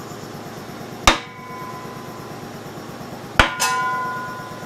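Two hammer blows on a wooden dowel held against the crankshaft pulley of an Allis-Chalmers C engine, driving the pulley onto the crankshaft. One comes about a second in, the other near the end with a quick second tap, each leaving a short metallic ring.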